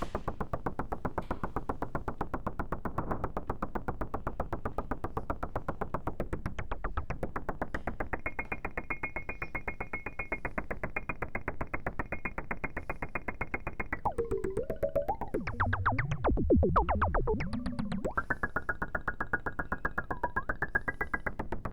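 Make Noise modular synthesizer playing a fast, even stream of gated noise hits, about eight a second, for a percussive pattern. A high steady tone joins about a third of the way in. Near the end the sound sweeps up and down in pitch for a few seconds before the tone returns.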